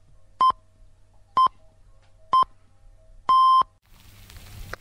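Electronic countdown beeps: three short beeps about a second apart, then one longer beep at the same pitch. A steady crackling hiss starts near the end.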